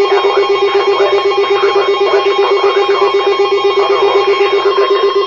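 Loud electronic alert tone from an emergency warning broadcast: a steady low-pitched tone that pulses rapidly on and off, like a ringing phone.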